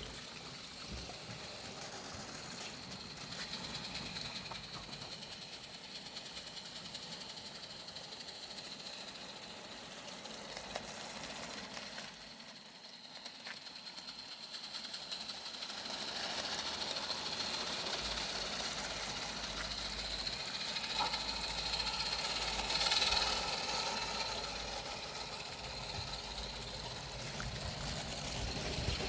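Small live-steam Accucraft Ruby locomotive running, its cylinders giving a rapid, rattling exhaust chuff. The sound swells and fades, quietest about halfway through.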